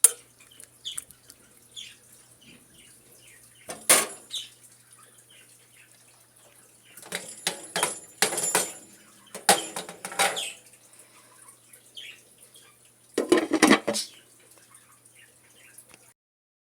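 Kitchen utensils knocking and clinking against a cooking pot and dishes: a sharp clink about four seconds in, a run of clattering from about seven to ten seconds, and another clatter near the end.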